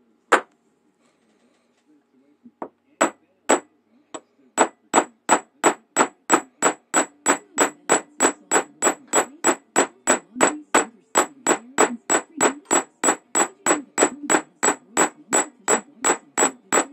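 Small hammer tapping a blued steel saxophone needle spring against a steel bench block. There is one sharp strike, then a few uneven taps, then a steady run of about three ringing metallic strikes a second.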